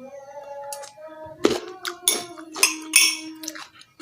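A spoon clinking against a glass about four times, scooping out pieces of kencur coated in honey.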